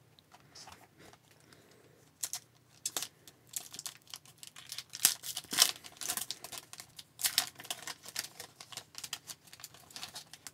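Foil wrapper of a hockey card pack being handled and torn open: rapid, irregular crinkling and crackling that starts about two seconds in.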